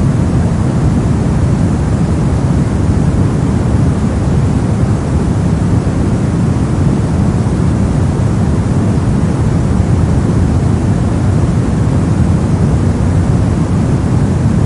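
Steady brown noise: a deep, even rumbling hiss with most of its energy in the low frequencies and little in the highs.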